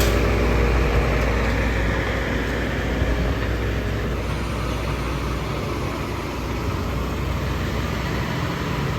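Truck engines running as the rail trucks pull away, a low rumble that slowly fades over the last few seconds.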